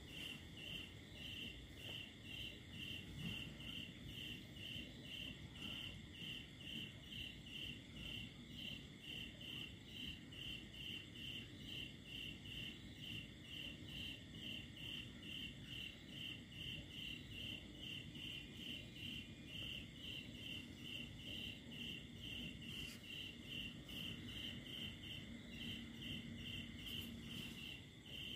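Cricket chirping in an even rhythm, about two chirps a second, over a steady high-pitched background hum.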